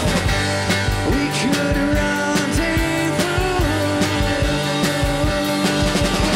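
Live rock band playing: acoustic and electric guitars, bass guitar, keyboard and drum kit, with a man singing lead.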